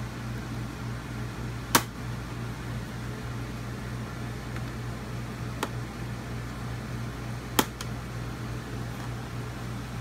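Sharp plastic clicks and snaps, three of them a few seconds apart, as a plastic pry tool works loose the snap-in tabs of an RV wall switch panel cover. A steady low hum runs underneath.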